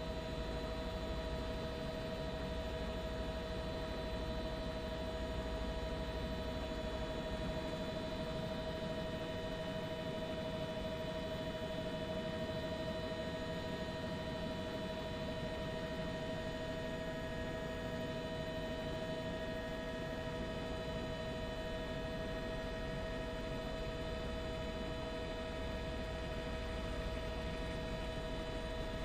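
Steady cabin noise from a news helicopter, heard through the crew's microphone: an unchanging hum with several constant tones over a low rumble.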